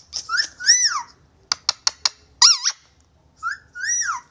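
Pet parrot giving short squeaky whistles that rise and fall in pitch, in several quick groups, with a few sharp clicks between them about a second and a half in.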